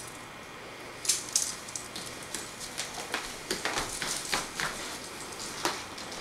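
Tape measure being handled: irregular sharp clicks and light taps, sometimes several close together.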